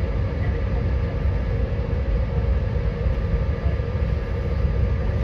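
Steady low rumble of an airliner's cabin on the ground after landing, with a few faint steady tones above it.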